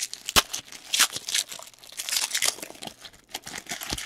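Trading-card pack wrapper crinkling and tearing as a pack is opened and the cards handled, with irregular crackles and a sharp click about half a second in and again near the end.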